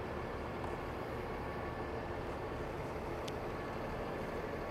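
Heavy-duty crane tow truck's diesel engine running steadily as the truck maneuvers on the ramp, with one short high tick about three seconds in.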